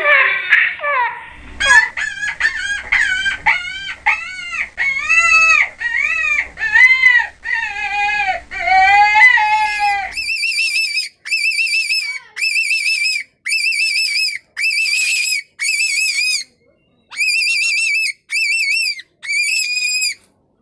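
Rabbit screaming: a rapid run of short, arching high-pitched shrieks, then, about ten seconds in, a higher, wavering shriek repeated about once a second.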